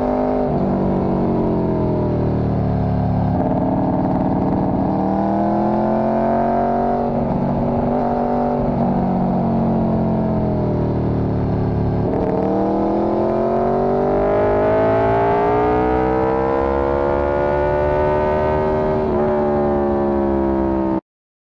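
Motorcycle engine running on the road, its pitch rising and falling with the throttle. About halfway through it drops sharply, then climbs steadily for several seconds. The sound cuts off abruptly near the end.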